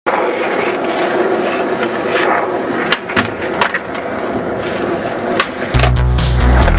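Skateboard wheels rolling on a skatepark's hard surface, with several sharp clacks of the board popping and landing between about three and five and a half seconds in. Electronic music with a steady beat comes in near the end.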